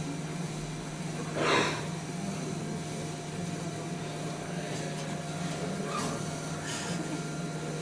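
A ball-track machine built of aluminium profiles and steel rails running with a steady low hum. There is a brief loud clatter about a second and a half in and a few light clicks later on.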